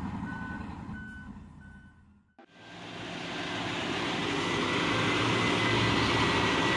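Mining haul truck's reversing alarm beeping evenly at one pitch, about three beeps every two seconds, over its diesel engine, fading out about two seconds in. After a cut, a steady rushing heavy-machinery noise with a low engine hum takes over and grows louder.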